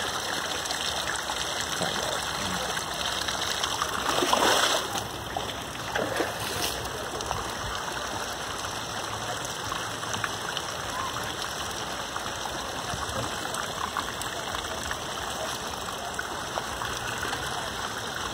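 Steady rush of flowing water at a hot spring pool, with a louder swish of water about four and a half seconds in.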